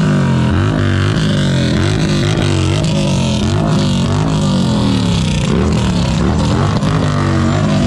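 Several big touring motorcycles running and revving as they roll slowly past, their engine pitch rising and falling again and again with throttle blips.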